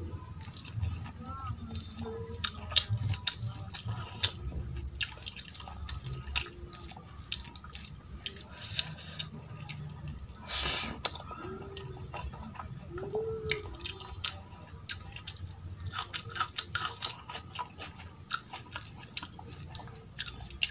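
Close-miked eating by hand: fingers squishing rice into runny dal fry, and wet chewing with many quick lip smacks and mouth clicks.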